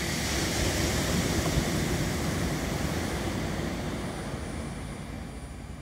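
Sea surf washing onto a sandy beach: a steady rush of breaking waves that swells near the start and slowly fades, with wind rumbling on the microphone underneath.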